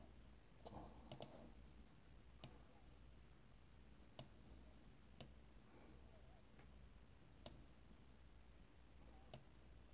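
Faint computer-mouse clicks, single and irregular, about one every second or two, over near-silent room tone.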